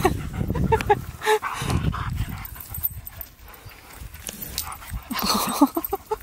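A dog giving short whining yips in small groups, a couple about a second in and a quick run of them about five seconds in, with dogs' paws thudding on grass as they play.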